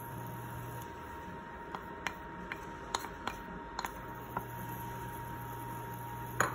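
A whisk clattering against a metal saucepan of thickening milk and starch as stirring begins, a sharp double clink near the end. Before it come a handful of light ticks and drips, over a steady low electric hum.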